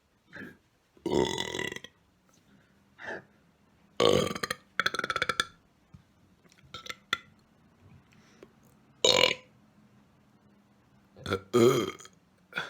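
A person burping loudly over and over on purpose: about five big burps, the longer ones nearly a second each, with two coming right after one another about four seconds in, and a few smaller burps between.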